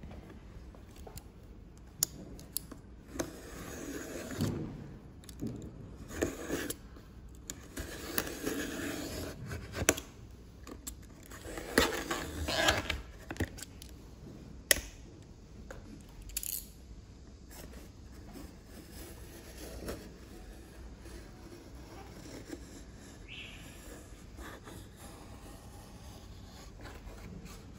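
Utility knife drawn along a steel ruler, cutting away excess strengthening film over a foam wing, with scraping and crinkling of the plastic film and scattered sharp clicks and taps of blade and metal ruler. The cutting and scraping is busiest in roughly the first half and quieter later on.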